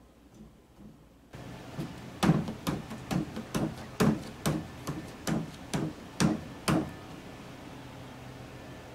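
A series of about a dozen sharp knocks, roughly two a second, each ringing briefly, over a low steady hum.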